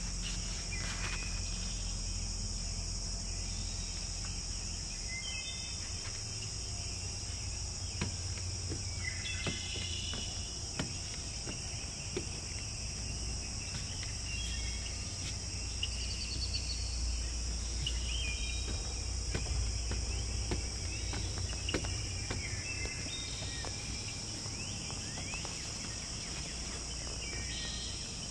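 Steady high-pitched insect chorus, with short chirps now and then and a low rumble underneath.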